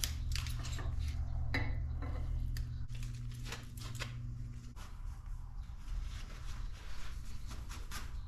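A knife blade and its coffee-etch container being handled: a run of light clicks, taps and scrapes of metal against hard surfaces, over a steady low hum.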